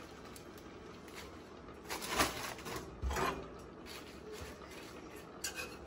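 Quiet kitchen handling: a plastic bag of fresh spinach rustling, with a few sharp clicks and knocks of metal tongs against a stainless skillet, the loudest about two seconds in.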